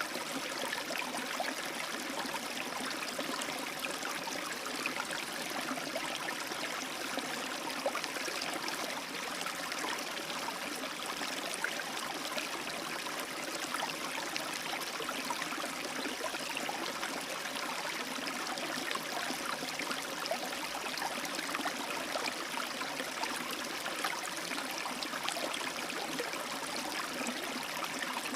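A small rapid of a stream running steadily, water splashing and babbling over rocks with a constant hiss.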